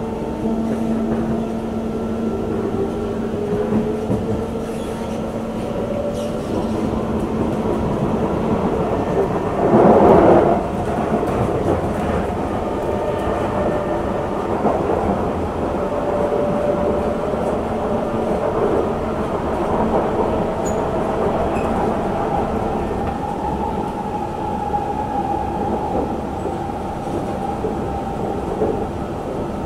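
Singapore MRT train running, heard inside the carriage: a steady rumble of wheels on rail with the whine of the traction motors, which rises in pitch during the first few seconds. About ten seconds in there is a brief, louder burst of noise lasting around a second.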